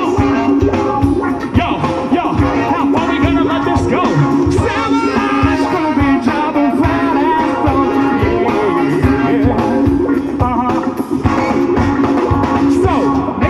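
A live rock band playing at full volume: drums, electric guitar and a brass section, with a singer's voice over the band.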